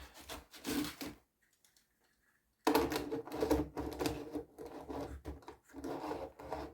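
Clicks, rattles and rubbing of a plastic HO scale model locomotive and its packaging being handled, broken by a silent gap of about a second and a half starting a second in.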